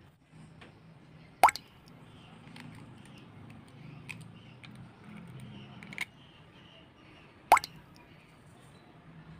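Two short, sharp plops, one about a second and a half in and one near the end, with a few faint clicks between, as an egg is cracked into a stainless steel mixing bowl and sugar is spooned in.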